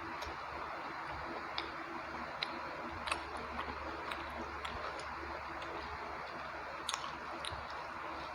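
A person chewing a mouthful of rice and chicken curry, with scattered short wet mouth clicks over a steady background hiss.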